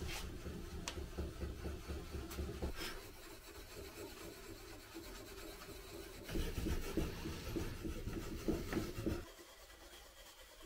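Hand rubbing down the sealed wooden frame of an old step-ladder chair, a run of dry scratchy rubbing strokes. The strokes grow louder a few seconds before the end, then stop suddenly about nine seconds in.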